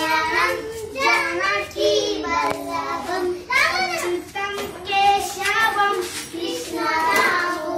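Children singing a song together, in short phrases with held notes.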